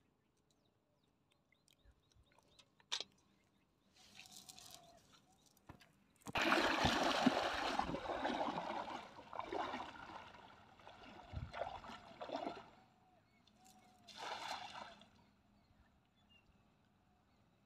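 Water sloshing and splashing around a man's legs as he wades through a shallow pond, loudest in uneven surges with his strides, then a last splashing surge before it settles.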